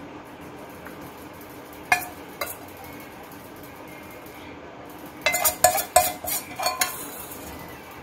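Metal spoon clinking and scraping against a steel bowl as coated okra is tipped out onto a plate: two clinks about two seconds in, then a quick run of ringing clinks in the second half.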